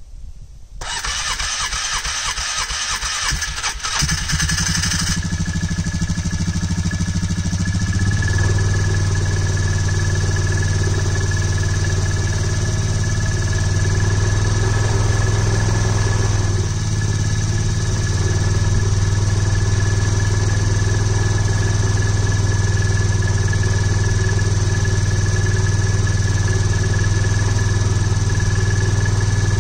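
Carbureted ATV engine being cold-started: the engine is cranked for about three seconds, catches about four seconds in and runs unevenly, then settles into a steady raised idle to warm up, with a brief dip about halfway through.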